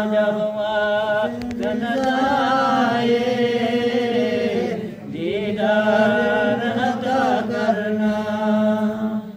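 A man's voice singing an Urdu naat in long, drawn-out melodic lines. There is a short break for breath about halfway through.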